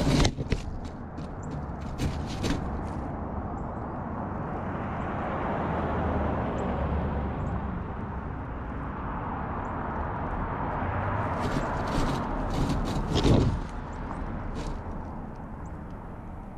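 Outdoor traffic noise from a passing vehicle, swelling and then fading over several seconds, with scattered sharp clicks and knocks near the start and again about two-thirds through.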